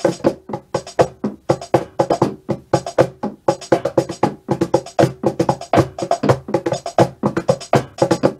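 Drumming, fast and uneven, about five or six hits a second, over a steady tone.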